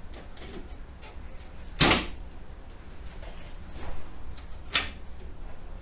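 Sharp clicks and knocks of hand work on the pickup's front grille and its clips, the loudest about two seconds in and another near the end. Faint short high chirps come in between.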